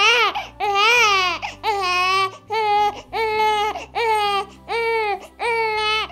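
Newborn baby crying: about eight short wails in a steady rhythm, each about half a second long.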